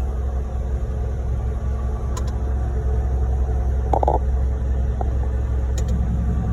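Concrete truck's diesel engine running steadily, a low rumble, with a short burst of noise about four seconds in.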